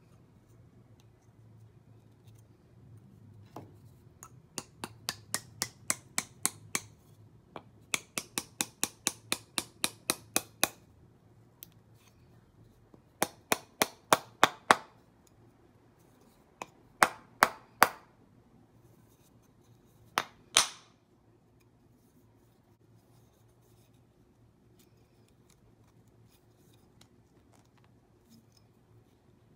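Runs of sharp wooden taps, a mallet driving a thin wooden wedge into the slot of a new hammer handle to lock the head on. The taps come in several bursts of about three to four a second, with a last few single knocks around twenty seconds in.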